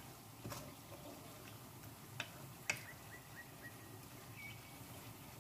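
Faint sizzling of thick beef liver masala frying in a wok on high heat, with a few light clicks and pops scattered through it. The masala is at the bhuna stage, with the oil beginning to separate.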